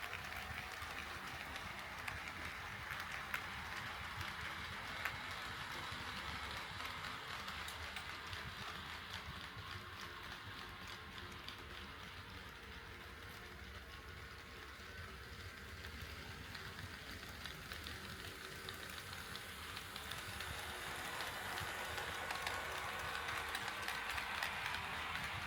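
HO scale model train rolling on KATO Unitrack: a steady running hiss with scattered small clicks. It grows quieter in the middle and louder again near the end.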